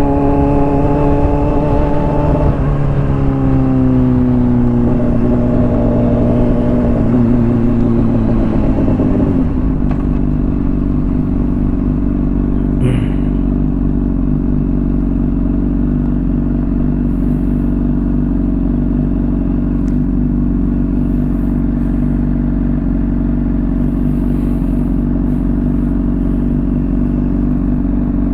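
Honda CBR600RR inline-four through a slip-on exhaust. Its note drops in several steps as the bike slows and gears down, with wind rush over it. About ten seconds in the wind noise stops and the engine settles into a steady idle.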